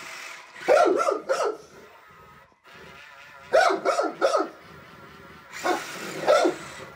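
A young mastiff barking in three short bursts of two or three barks each, play barks given from a play bow.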